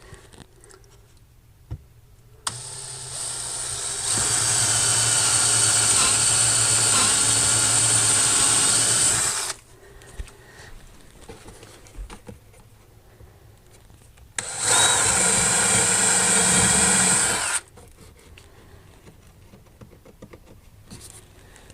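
Power drill boring a pilot hole up through a wooden piece. It runs twice: a long run of about seven seconds that speeds up shortly after it starts, then a shorter run of about three seconds, with quiet handling in between.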